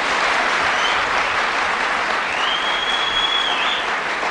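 Audience applauding steadily, with a held whistle from someone in the crowd about two seconds in.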